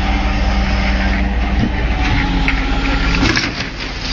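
Truck-mounted crane's engine running at a steady idle, a low even hum. About three seconds in it gives way abruptly to noisier clatter.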